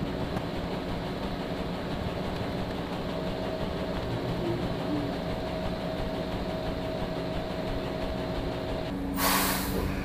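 Caterpillar C13 diesel of an Oshkosh concrete mixer truck idling, heard from inside the cab, with a short loud blast of hissing air from the truck's air system about nine seconds in, after which the engine's note changes.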